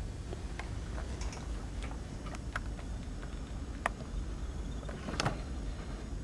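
Scattered light clicks and ticks at irregular intervals over a low steady rumble, with a slightly louder click a little after five seconds in.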